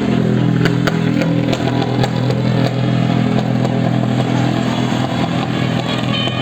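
A motor vehicle's engine running steadily at an even pitch, with scattered short clicks and rattles over it.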